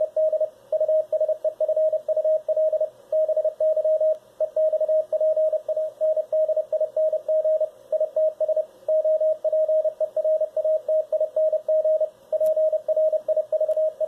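Morse code (CW) tone, about 600 Hz, from an Elecraft K3s transceiver receiving a CW signal, keyed on and off rapidly with a few brief pauses. The radio's built-in decoder is turning the signal into text. Faint receiver hiss sits under the tone.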